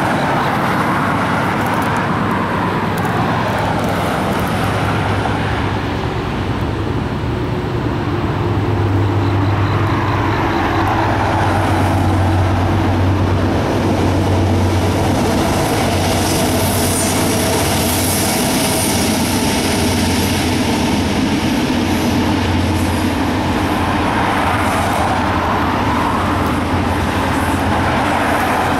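Norfolk Southern intermodal freight train passing: a steady low diesel locomotive drone under the rumble of double-stacked container well cars rolling by, with a high wheel squeal around the middle.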